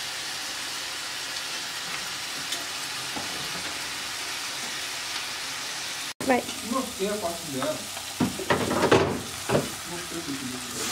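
Steady sizzling hiss of food cooking on the stove. About six seconds in, after a sudden break, a spatula stirs and scrapes in an aluminium pan of frying onion and tomato as tomato sauce goes in, with several short clattering scrapes.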